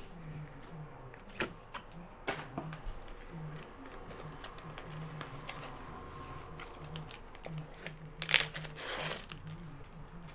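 A packaged paper notebook being opened and handled: scattered light clicks and paper-and-plastic rustling, with a louder rustle about eight seconds in.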